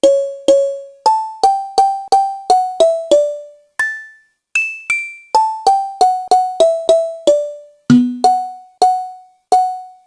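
Music: a simple melody of short, separate keyboard notes, each struck and dying away quickly, about three notes a second with a brief pause midway.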